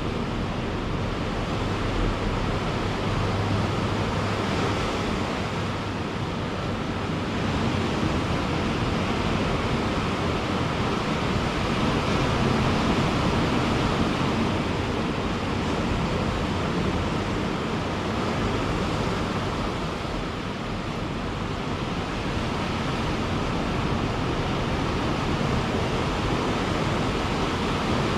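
Ocean surf on a beach: a continuous rush of breaking and washing waves that swells and eases slowly every several seconds.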